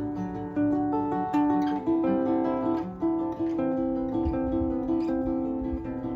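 Guitar played solo as a song's instrumental ending: a melodic line of plucked single notes over held chords, the notes starting one after another at a moderate pace.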